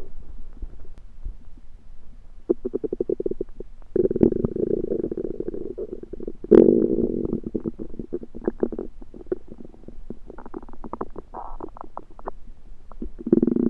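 Human stomach and intestines gurgling and rumbling: a run of rapid bubbly clicks with louder gurgling surges about four seconds in and a sharp louder one at about six and a half seconds. The uploader puts the noises down to something he ate that he thinks was undercooked.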